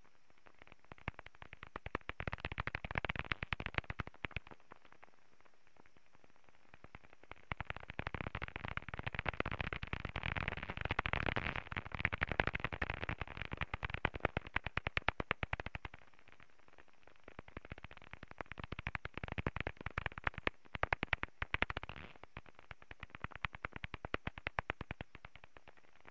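Pond bat echolocation calls made audible by a bat detector: fast trains of dry clicks that come and go in several passes of a few seconds each as bats fly by, with a low hiss between the passes.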